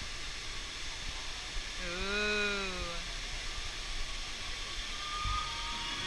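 Steady hiss of water spraying from fountain jets and a cascade falling into a pond. About two seconds in, one drawn-out voice rises and falls in pitch for about a second.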